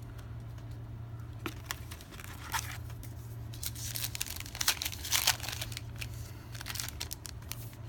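Foil wrapper of a trading card pack being torn and crinkled, in a scatter of short crackles that are busiest near the middle.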